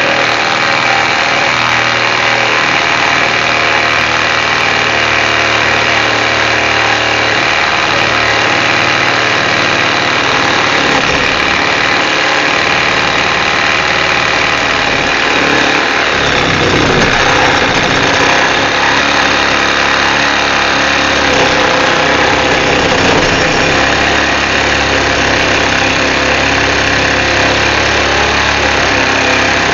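Milwaukee M12 Hackzall, the non-Fuel 12-volt one-handed reciprocating saw, running under load as its blade cuts through 3/4-inch steel pipe: a loud, steady rasp of blade on metal over the motor's drone.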